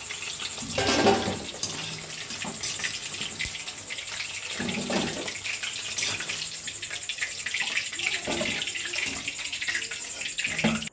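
Battered chicken pakoras deep-frying in a kadai of hot oil, a steady sizzle, with a few clatters of a wire-mesh skimmer against the pan and a steel bowl, the loudest about a second in.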